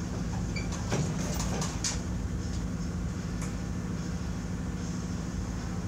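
A few sharp knocks and clanks from the steel pickup bed, hung on an engine hoist, as it is shifted by hand, about one to two seconds in. A steady low mechanical hum lies under them.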